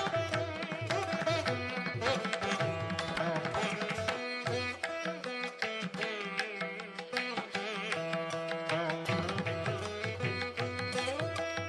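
Indian classical instrumental music with plucked strings over a steady drone and tabla-like drumming.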